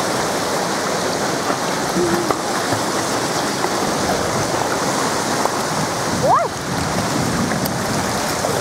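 Steady rush of falling and splashing water at a water park. About six seconds in there is one short high call that rises and falls.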